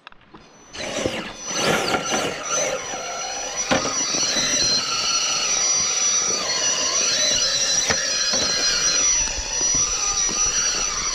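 Electric motor and drivetrain gears of a 1:10 scale RC rock crawler whining as it crawls over rock. A steady high whine sits under whining tones that shift up and down with the throttle, and there are two or three sharp knocks.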